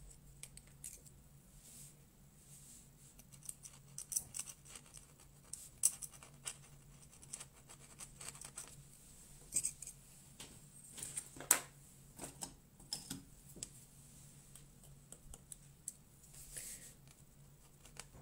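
Faint, scattered scratches, clicks and light taps from a metal-nibbed dip pen, scratching across watercolour paper and being set down and picked up as the pen is swapped for a broader nib.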